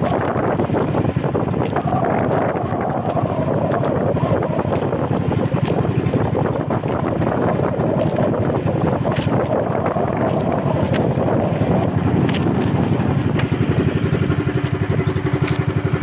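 A small fishing bangka's engine running steadily under way, with wind buffeting the microphone.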